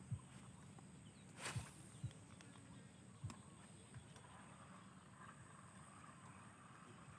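Quiet fishing-bank ambience while casting a lure for snakehead. There is a brief swish of the cast about a second and a half in, and a few soft low thumps scattered through.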